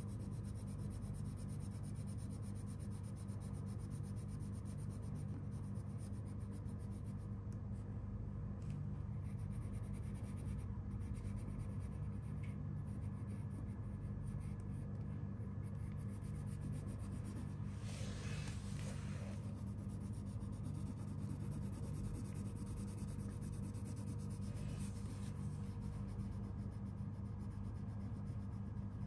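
Wax crayon rubbing on paper while colouring in, over a steady low hum.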